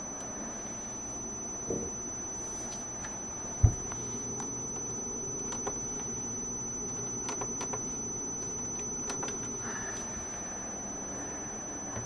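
Quiet room tone with a steady high-pitched electronic whine and a low hum, broken by a single dull thump about three and a half seconds in and a few faint clicks later on.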